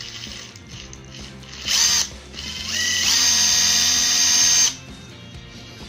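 Bosch 18V 1/4-inch hex impact driver running free in reverse with no load. A short blip of the trigger comes near two seconds in. Then the motor spins up with a rising whine, holds at steady speed for about a second and a half, and cuts off.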